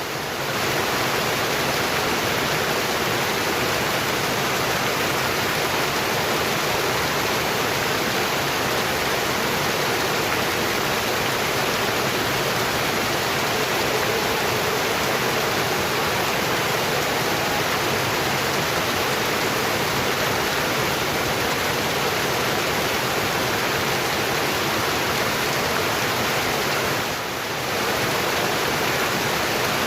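River water rushing steadily over a weir, an even, unbroken roar that dips briefly near the end.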